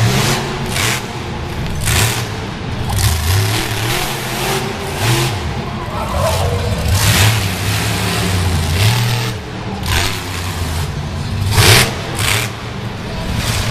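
Monster truck engine running hard, with the throttle blipped in repeated revving surges over a low rumble. The loudest surge comes near the end.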